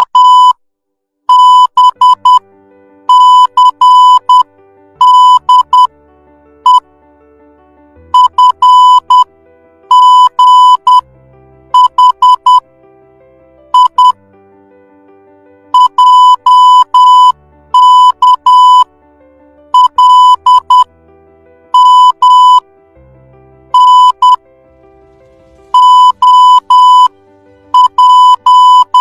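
Morse code sent as a loud, steady high-pitched beep keyed in short and long pulses, grouped into letters with pauses between them, over quiet background music.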